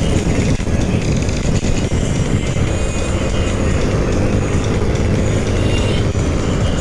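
Riding noise of a Honda Scoopy scooter on the move: a steady rush of wind on the microphone and road noise, heaviest in the low end.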